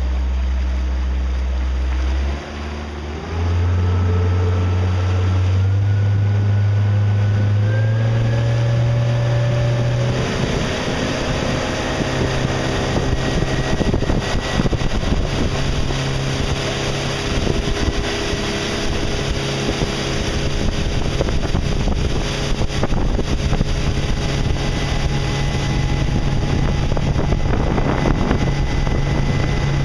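Motorboat engine idling low, dropping off briefly about two seconds in, then throttling up with its pitch rising in steps over several seconds and running steadily at speed, with rushing water and wind over it.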